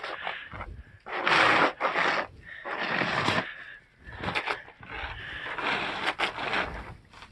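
Snow rake scraping wet snow off a flat patio roof, about half a dozen long irregular scraping strokes as clumps of snow are pushed and slide off the roof edge.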